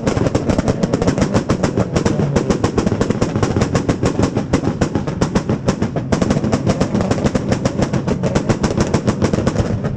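A tuned car's exhaust firing a rapid, continuous string of loud pops and bangs, several a second, from a flame-spitting pop-and-bang setup.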